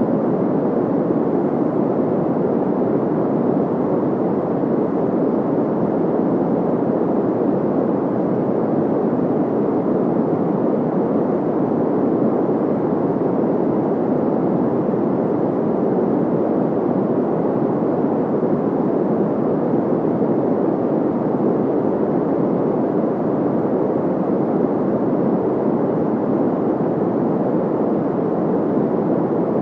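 Steady, low-pitched synthetic noise (a white-noise sound effect), an even rushing hiss centred in the lower mids with little treble, constant in level throughout.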